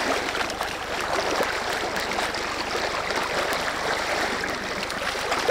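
Shallow stream water rushing steadily, with splashing from a large hooked trout thrashing at the surface.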